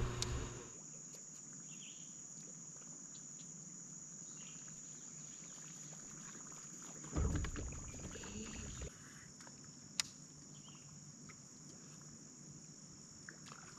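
Faint, steady high-pitched drone of insects, with a brief low rumble about seven seconds in and a single sharp click near ten seconds.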